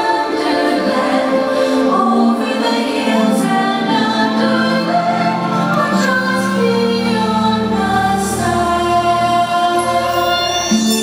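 Fireworks show soundtrack of choral music, with voices holding long notes and deep low notes coming in about halfway.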